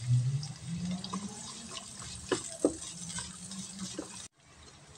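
Sliced shallots and garlic sizzling in hot oil, with a few knocks of a wooden spatula as they are stirred. The sizzle cuts off abruptly near the end.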